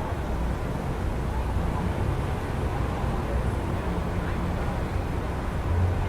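Steady rumble of city traffic heard through an open window: a continuous low, even hum with no single event standing out.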